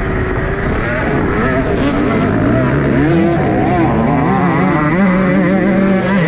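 Motocross dirt bike engine revving hard under acceleration, its pitch rising and falling through the gears, then climbing about two and a half seconds in and holding high. Other race bikes' engines are running close by.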